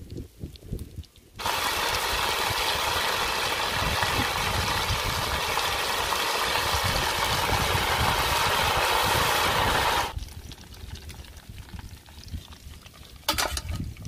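Marinated quail deep-frying in hot oil in an iron kadai: a loud, steady sizzle that starts suddenly about a second and a half in and stops abruptly about ten seconds in. A short knock near the end.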